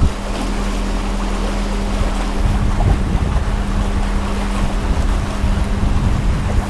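Wind buffeting the microphone over choppy water slapping and lapping, with a steady low hum underneath.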